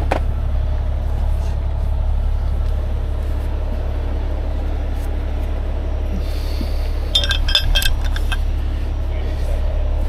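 Steady low drone of the heavy wrecker's diesel engine running. About seven seconds in comes a brief cluster of metallic clinks from the rigging hardware on the winch line being handled.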